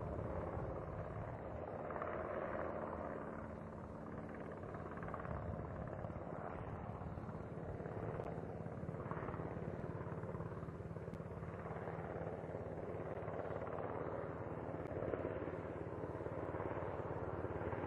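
Steady mechanical drone: a low hum under a constant rushing noise, from machinery running.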